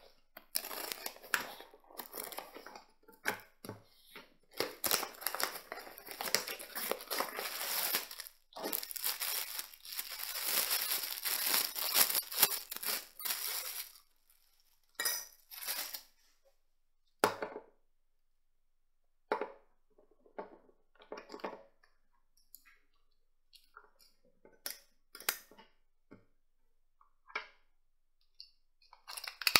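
Packaging being torn open: a plastic bag crinkling and tearing in a dense run of rustle. About halfway through this gives way to scattered small clicks and taps as the plush toy is handled and its screwed-on battery cover is taken off.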